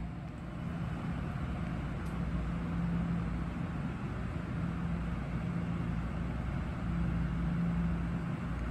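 Train running past, a steady rumble with a low hum under it.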